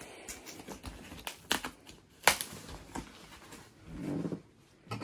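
Cardboard box being handled and its packing tape cut open with a knife: scattered taps, scrapes and knocks, the loudest a sharp knock a little after two seconds in.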